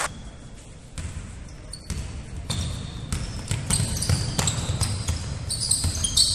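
Basketball being dribbled on a sports hall floor: repeated bounces starting about a second in, echoing in the large hall, with short high squeaks scattered among them.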